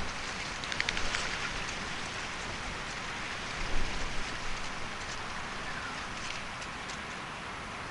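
Steady hiss of rain, with a cluster of sharper drop ticks about a second in and a louder knock a little before the middle.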